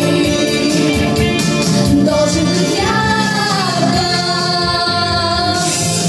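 Children's pop song played loud over a hall's sound system: a young female voice singing over a backing track with a steady beat, holding one long note about halfway through that bends down before the melody goes on.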